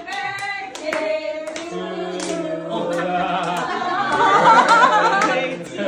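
A group of people singing together, clapping their hands along; the singing grows loudest about four seconds in.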